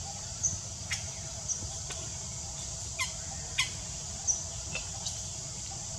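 Short, high animal chirps and squeaks, a few sweeping steeply down in pitch, over a steady high-pitched drone.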